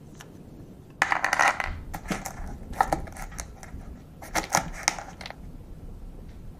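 Crushed mixed nuts poured into a small plastic cup of a toy kit tray and stirred with a plastic spoon. A dense dry rattle comes about a second in, followed by shorter clicking, scraping bursts around three seconds and again around four and a half.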